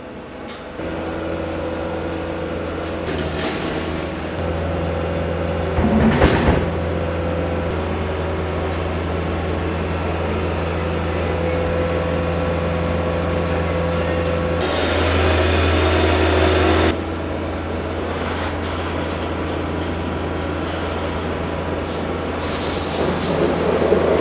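A vehicle engine running with a steady drone. There is a sharp clunk about six seconds in, and a louder, hissier stretch from about fifteen to seventeen seconds. The sound changes level in sudden steps.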